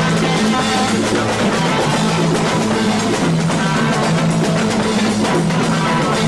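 Instrumental rock jam: electric guitar and bass over a drum kit, playing a steady groove with no singing.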